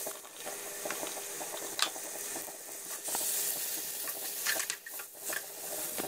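Marinated chicken pieces sizzling steadily in hot oil in a metal frying pan, with a spatula scraping and clicking against the pan as they are stirred.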